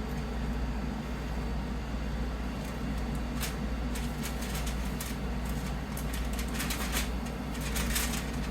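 Aluminium foil crinkling and crackling as it is pulled back from a baking pan, starting about three seconds in and getting busier toward the end, over a steady low hum.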